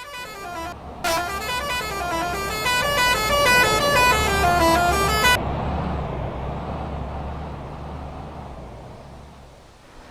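Telolet musical horn on a PO Haryanto intercity bus playing its stepping multi-note tune: a short phrase, then a longer one of about four seconds. After the horn stops, the bus's engine rumble carries on and fades away as the bus passes.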